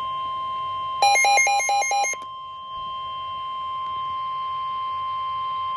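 NOAA Weather Radio 1050 Hz warning alarm tone, a steady high-pitched tone signalling a severe thunderstorm warning. About a second in, a louder burst of rapid alternating beeps plays over it for about a second.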